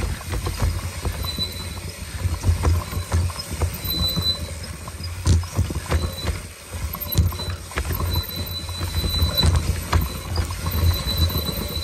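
Mountain bike descending a rough dirt trail: tyres crunching over dirt, roots and rocks, with constant knocks and rattles from the bike and bursts of wind rumble on the microphone. A faint high whine comes and goes.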